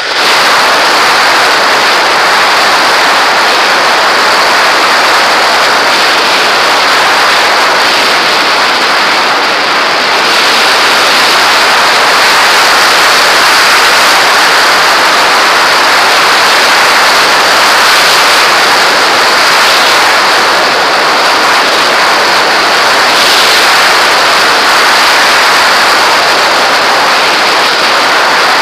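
Loud, steady rush of airflow over the onboard camera of a radio-controlled model plane in fast flight: wind noise with no motor tone.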